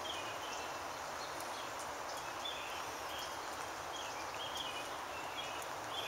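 Quiet outdoor ambience: a steady hiss with a scattering of faint, short, high bird chirps.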